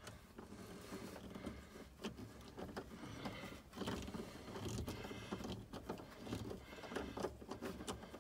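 Faint, scattered clicks and scrapes of a long nut driver turning a small screw into the clamp that holds a heater control cable sheath, with a hand rustling among the cables under the dashboard.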